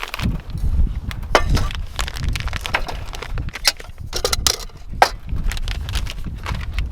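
Many irregular sharp clicks and knocks over a steady low rumble of wind.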